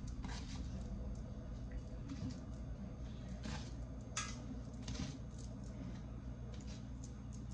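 Gloved hands placing raw ground-meat meatballs into a stainless steel pan: a few brief soft rustles and squishes over a steady low hum.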